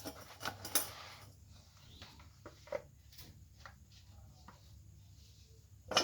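Kitchen items being handled: scattered light clicks, knocks and clinks, with a sharper click about a second in and another near the end.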